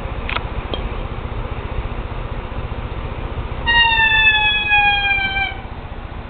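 A cat giving one long meow, slightly falling in pitch, a little past halfway through, preceded by two faint clicks near the start.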